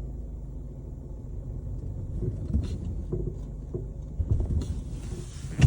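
Car driving with a steady low road rumble, and from about halfway through a run of low clunks from the suspension, several knocks a half-second to a second apart, the loudest near the end. The clunking is the sign of a suspension fault.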